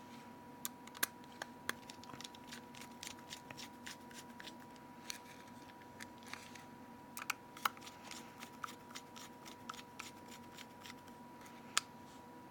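Scattered small clicks and taps of a Nokia N8 phone's casing and parts being handled and turned over in the fingers, over a faint steady high tone.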